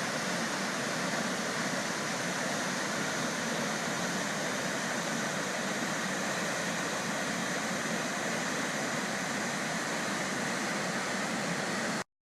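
Steady rushing roar of falling water at the Krimml Waterfalls, cutting off suddenly at the very end.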